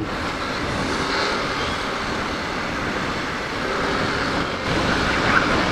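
Steady rush of wind and road noise on the microphone of a moving motorcycle.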